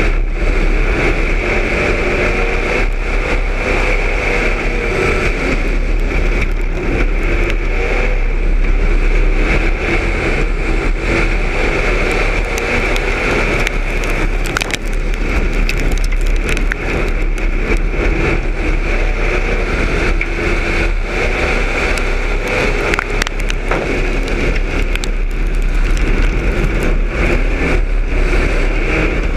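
Street stock race car's engine running hard at racing speed, heard from inside the car, its pitch rising and falling with the throttle through the turns. Sharp clicks and rattles come through around the middle.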